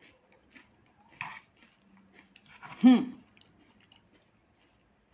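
Close-up chewing and crunching of raw salad greens in the mouth, with soft wet clicks between bites. About three seconds in comes a brief voiced sound from the eater, the loudest moment in the stretch.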